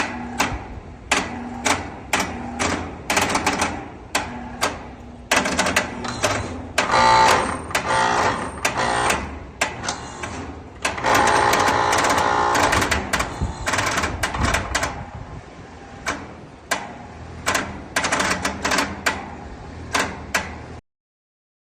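Air-conditioner condenser unit clicking repeatedly and irregularly, with two longer buzzing stretches, as it keeps switching on and off. This short-cycling comes from a float switch tripping on a clogged condensate drain and cutting the condenser's power.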